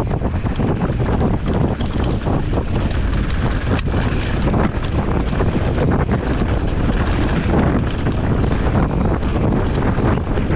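Heavy wind noise buffeting the microphone of a fast-moving camera, over a steady low rumble with many small clicks and rattles throughout.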